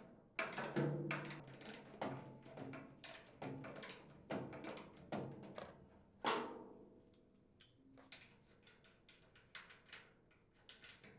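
Socket wrench and open-end wrench working nuts off bolts on a chipper shredder's steel hopper plate: irregular metallic clicks and clinks, with one louder ringing clink about six seconds in, then only a few light taps near the end.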